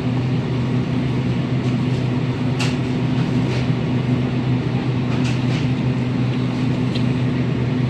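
Steady low machine hum with an even background rush, broken by a few short light clicks and taps.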